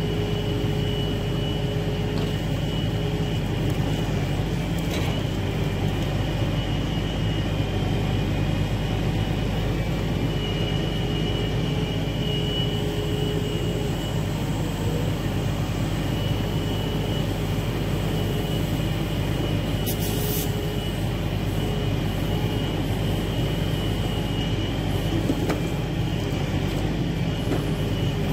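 Log truck's diesel engine running steadily to drive the hydraulics of its knuckle-boom loader, with a hydraulic whine that comes and goes as the crane swings logs. A couple of short knocks, about five seconds in and again near twenty seconds.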